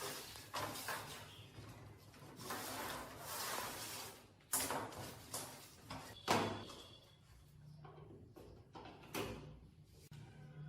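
Handling noise from an old metal table fan being worked on: scraping and rubbing for the first few seconds, then several sharp knocks and clacks, the loudest about six seconds in.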